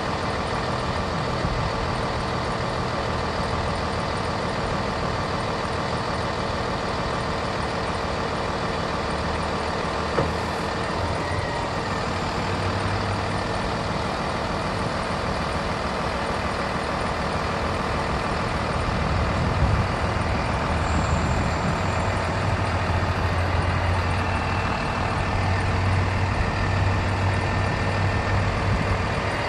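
A bucket truck's diesel engine running steadily, driving the hydraulics while the Altec AT37G aerial boom is lowered to its stowed position. A low hum swells and eases several times in the second half.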